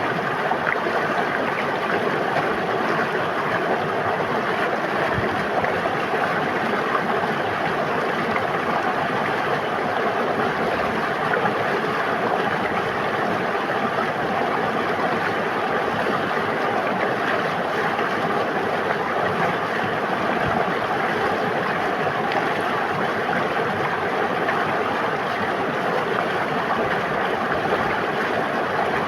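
River water flowing and babbling steadily, an even rushing with no change.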